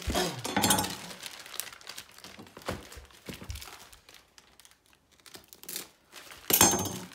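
Packaging being handled during an unboxing, crinkling and rustling in irregular bursts, loudest at the start and again near the end.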